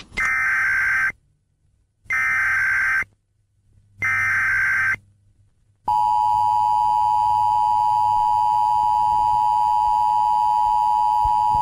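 Emergency-alert broadcast tones in the style of the US Emergency Alert System. First come three electronic data bursts of about a second each, two seconds apart. About six seconds in, a steady two-tone attention signal sets in and holds.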